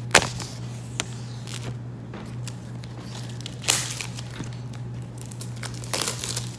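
Apple Pencil packaging handled and opened by hand: cardboard and plastic rustling and crinkling, with a few sharp clicks and louder rustles about halfway through and near the end, over a low steady hum.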